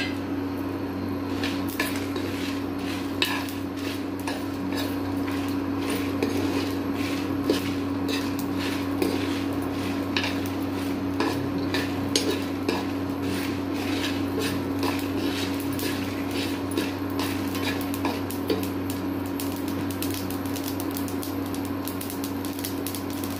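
Dry red chillies with mustard and fenugreek seeds frying in hot oil in a nonstick pan: irregular sharp clicks and pops, several a second, over the steady hum of an induction cooktop.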